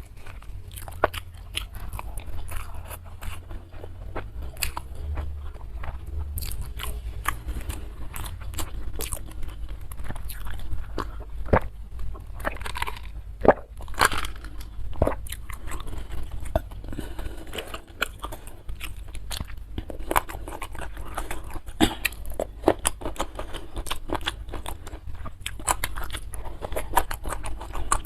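A person eating close to the microphone: steady chewing with many sharp crunches and crackles.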